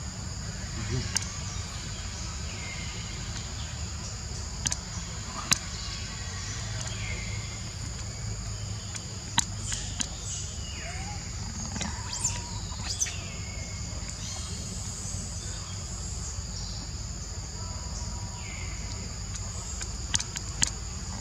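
Steady, high insect drone, pitched in two levels, with scattered sharp clicks and a few brief gliding calls over it.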